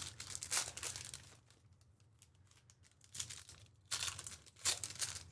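Trading card pack wrappers crinkling and tearing open, in irregular bursts: one in the first second, a short one near the middle and another toward the end.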